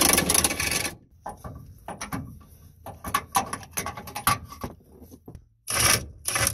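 Milwaukee half-inch impact wrench hammering on a truck bed bolt through a long extension and 18 mm socket, running for about the first second, then scattered metallic clicks and rattles of the extension and socket, and a second short burst of the impact near the end.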